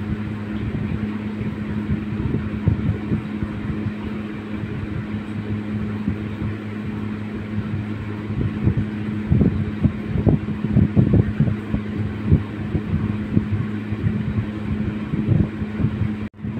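Electric fan running with a steady low hum, its air buffeting the microphone in irregular low rumbles and thumps. The sound cuts out briefly near the end.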